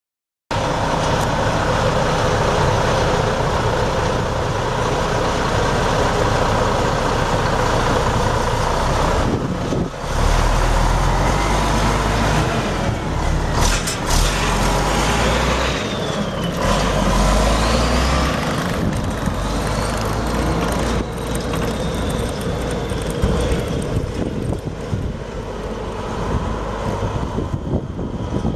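Mack E7 12.0-litre inline-six turbo diesel running steadily. Its low rumble swells several times between about ten and eighteen seconds in, and a few sharp knocks come around then.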